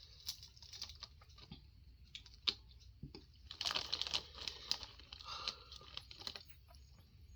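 Close-miked handling and eating of seafood boil: scattered sharp clicks and crackles as food and shells are worked by hand, with a denser crinkly stretch about three and a half to five seconds in.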